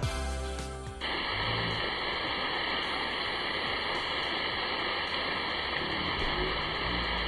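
Steady, even rush of falling water from a waterfall, starting about a second in as background music ends.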